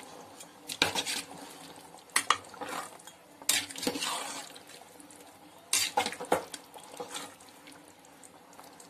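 A ladle scraping and knocking against the side of a metal pot while stirring thick, wet chicken masala gravy. The clatter comes in about five irregular bursts.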